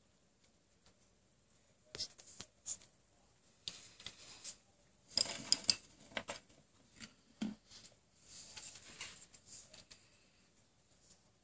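Paper rustling and small clicks and knocks of handling, scattered and busiest about five to six seconds in.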